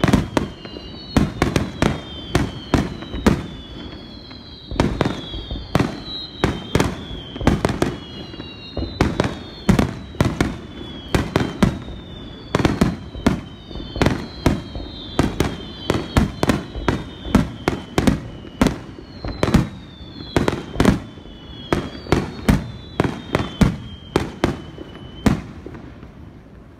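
Aerial firework shells bursting in rapid succession, several sharp bangs a second, in the climax barrage of a fireworks show. High whistles glide down in pitch between the bangs. The barrage stops near the end.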